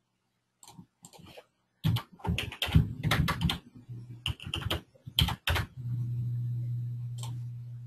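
Irregular run of clicks and clatter lasting a few seconds, then a steady low hum that sets in about six seconds in and fades near the end.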